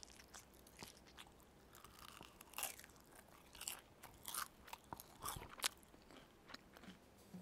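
Crispy pan-fried carrot pancakes (carrot jeon) crunching: a string of irregular, sharp, crackly crunches, thickest in the middle seconds.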